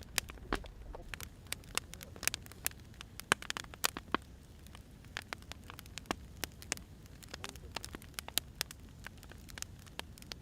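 Wood fire crackling: irregular sharp pops and snaps from burning logs, several a second, over a low steady rumble of the flames.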